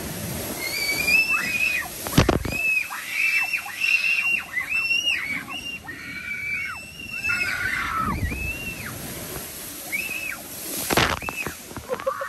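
Several riders screaming and whooping with excitement on a water-park raft slide, their cries overlapping throughout, with rushing, sloshing water and two brief loud splashes, about two seconds in and near the end.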